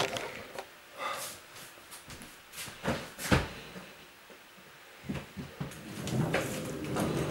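Storage boxes being moved and set down: a series of separate knocks and bumps, with a busier stretch of handling near the end.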